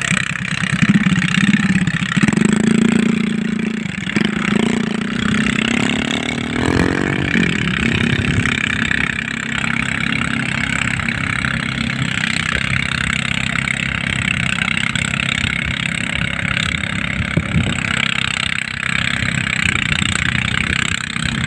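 A power tiller's engine running steadily while it drives a rice threshing machine.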